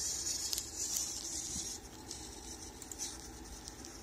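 Felt-tip marker held by a servo robot arm scratching across paper as the arm draws, with small clicks. The scratching is loudest in the first couple of seconds, then fainter.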